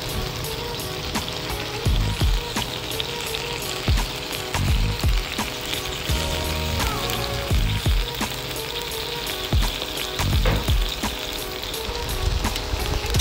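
Marinated tandoori chicken pieces sizzling and steaming on aluminium foil laid over a barbecue hot plate. Background music with a low beat plays under it.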